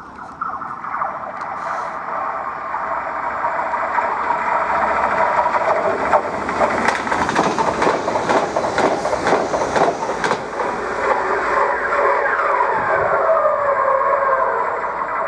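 Renfe class 449 electric multiple unit running over the track, with the wheels and rails giving a curious singing sound: many wavering, whistle-like tones over the rumble. A run of sharp clicks comes in the middle, and several tones fall in pitch near the end.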